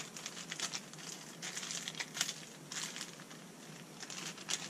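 Fishing-jig packaging crinkling and clicking in the hands as it is handled and opened, in short irregular crackles.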